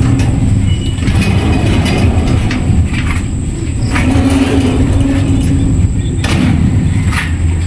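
Steel-framed mesh sliding door rolling by hand on ball-bearing rollers along its steel track: a continuous low rumble with a ringing hum that comes and goes and scattered clicks and knocks.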